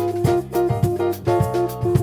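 Live Latin jazz combo playing a samba: electric guitar, keyboard, drum kit and hand percussion, with one note repeated in a quick, even rhythm over a bass line and steady drum hits.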